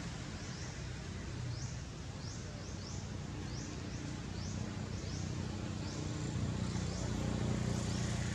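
Outdoor natural ambience: a run of short, high, rising chirps, about one or two a second, over a low steady hum.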